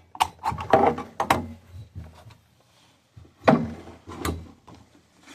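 Mechanical clacks and knocks of a 3D-printed firearm's action being worked, about seven in all: a quick cluster in the first second and a half, then two louder clacks about three and a half and four and a quarter seconds in.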